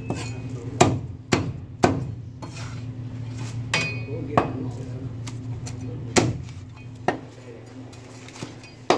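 Cleaver chopping through roast duck on a wooden butcher block: about eight sharp chops at uneven intervals. A steady low hum runs underneath.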